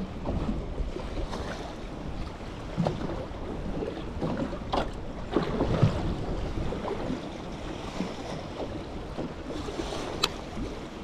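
Water lapping and slapping against the hull of a small boat drifting at sea, with wind on the microphone and a few sharp knocks.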